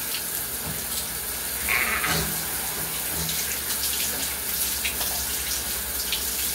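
Running shower spray falling onto a person and a plastic shower cap, a steady hiss of water. A brief higher-pitched sound stands out about two seconds in.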